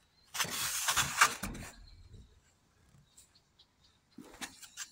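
Scraping and rustling of packed dirt and dried goose droppings being dug out of a metal awning gutter by hand, with crumbs dropping onto the awning. A burst of about a second and a half with one sharp scrape in it, a few faint ticks, then a shorter burst near the end.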